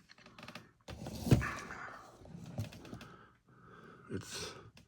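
Hands handling an action figure's cardboard box and plastic packaging: a string of clicks and knocks, the loudest about a second in, with short rustles between them.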